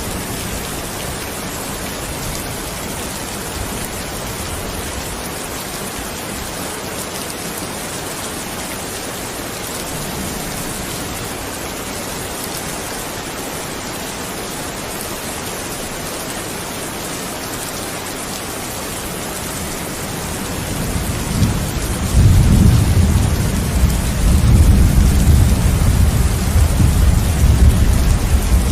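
Steady rain falling, with a low rumble of thunder rolling in about three quarters of the way through and growing louder.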